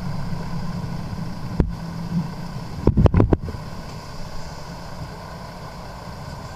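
Steady low rumble of a car heard from a dash camera, with a single thump about a second and a half in, then a quick run of four heavy thumps about three seconds in.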